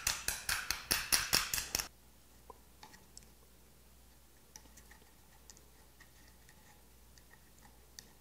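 Rapid, even clicking, about six sharp clicks a second, as a pick works against a boiled white whelk's shell; it stops abruptly about two seconds in, leaving only faint scattered small clicks while the meat and innards are drawn out of the shell.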